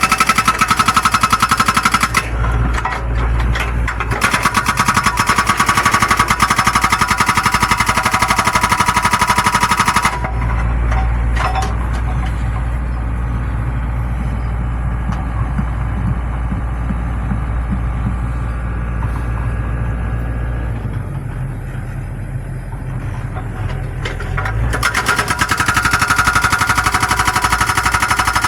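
Excavator-mounted hydraulic breaker hammering in rapid, steady blows over the diesel engine. Partway through the hammering stops for a long stretch, leaving the excavator engine running on its own, then the hammering starts again near the end.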